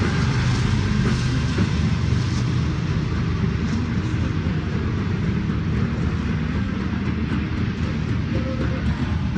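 Intermodal freight train of double-stacked container cars rolling steadily across a railway bridge: a continuous low rumble and rattling clatter of wheels and cars.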